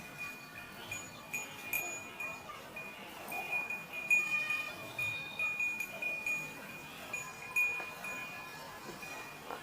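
Metallic ringing in quick repeated pulses, a few a second: streams of milk squirting into a steel pail as a cow is milked by hand.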